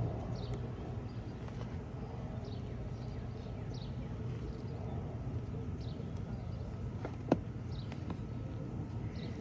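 Steady low outdoor rumble with faint, short, high chirps repeating every second or so, and one sharp click about seven seconds in.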